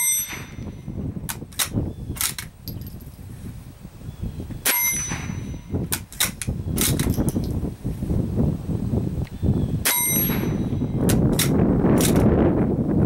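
Remington Model 34 .22 Long Rifle bolt-action rifle firing three shots about five seconds apart, at the start, near five seconds and about ten seconds in, each a sharp crack that rings briefly. After each shot come the metallic clicks of the bolt being worked to eject the case and chamber the next round from the tube magazine.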